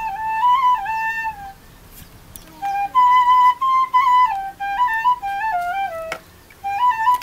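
Background music: a flute melody in short stepping phrases, pausing briefly about two seconds in and again near the end.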